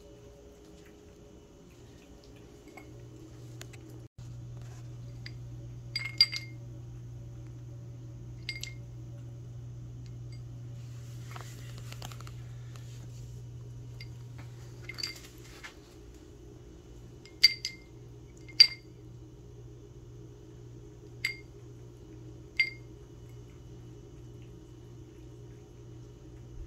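Light, ringing clinks of a small hard object on dishware, about ten of them at irregular intervals, each ringing at the same pitch. A steady low hum runs underneath.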